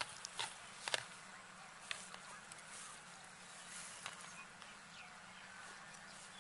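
A few sharp clicks and taps of a metal spoon against a steel tray and wire-mesh strainer as watermelon flesh is handled, the loudest in the first two seconds, over a faint steady hum.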